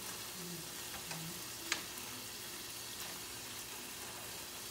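Ground beef and onions sizzling steadily as they brown in a skillet, with a utensil stirring and scraping the pan as the meat is broken up; one sharp click of the utensil on the pan a little under two seconds in.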